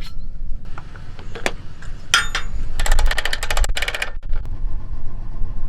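A quick run of rapid metallic clicks about three seconds in, with a few single clicks before it, over a steady low rumble.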